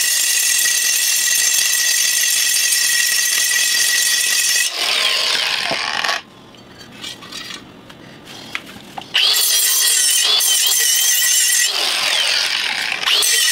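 Cordless angle grinder grinding metal at a wheel hub, a steady high whine over harsh grinding noise. About five seconds in it stops, a few small clinks follow in a short quiet, and a grinder starts up and runs again, with a brief dip near the end.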